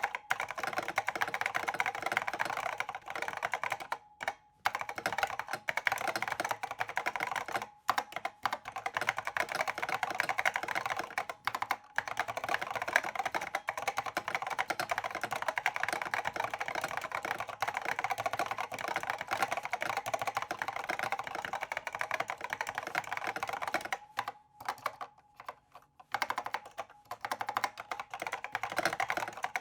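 Steady, fast typing on a completely stock IBM Pingmaster keyboard with SKCC Green Alps switches: a dense run of keystroke clicks, broken by a few short pauses.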